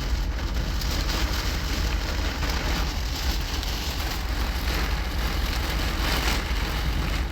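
Heavy wind-driven rain in a thunderstorm, pouring down as a steady hiss with a low rumble underneath.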